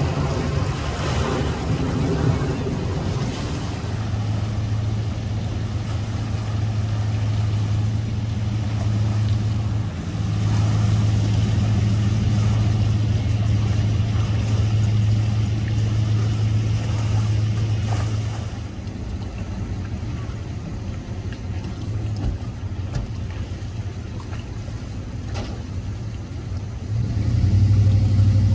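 Outboard boat motor idling with a steady low hum. The hum drops in level about two-thirds of the way through and comes back louder near the end.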